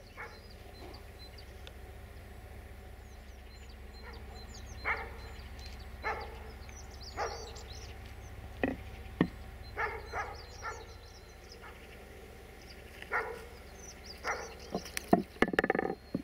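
A dog barking in short single barks, about a second or more apart, with birds chirping, over a steady low hum. A quick cluster of louder sharp knocks comes near the end.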